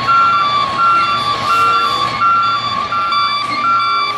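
Garbage trucks' reversing alarms beeping about twice a second, over a steady high tone and a low engine hum.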